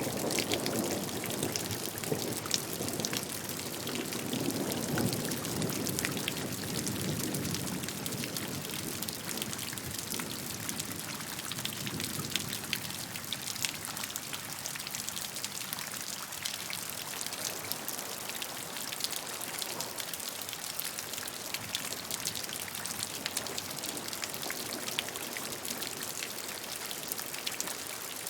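Steady rain: an even wash of rainfall with many separate drops ticking close by. A deeper, fuller layer of rushing water is strongest over the first ten seconds or so and then fades, leaving the lighter, drop-dominated rain.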